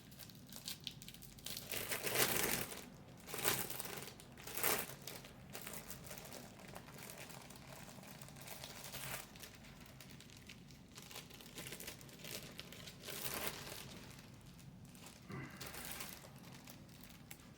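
Packaging crinkling and rustling in irregular bursts as a flag is unwrapped, with the loudest crackles around two to five seconds in and more again near thirteen seconds.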